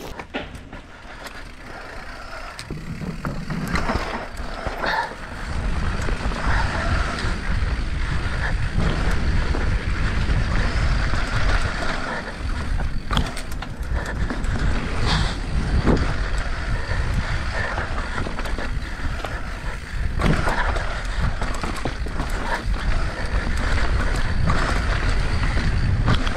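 Mountain bike riding down a rough downhill trail: continuous rolling noise with a low rumble, and frequent knocks and rattles from the bike over the ground. It builds over the first few seconds as the bike picks up speed.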